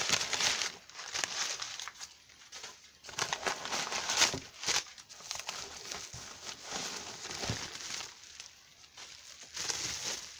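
Clear plastic packing wrap crinkling and rustling in irregular bursts as it is handled and pulled off a wrapped item from a packed box.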